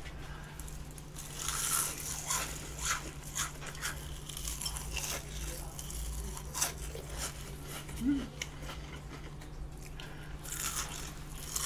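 Close-miked crunching and chewing of crispy deep-fried battered vegetables (tempura), in irregular clusters of short crackles, the loudest about two seconds in and again near the end. A steady low hum runs underneath.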